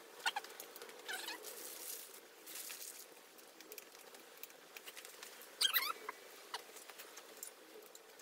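Faint scratching and rustling of hands and a small tool working on the underside of an electric sit-stand desk frame, with a few short squeaks, the loudest a little under six seconds in.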